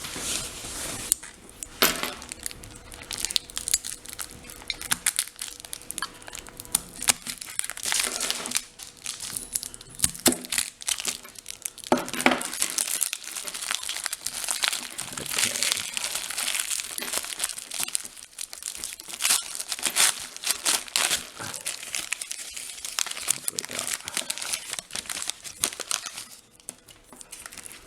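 Parcel packaging being unwrapped by hand: irregular crinkling and rustling with some tearing, in clusters with short pauses between them.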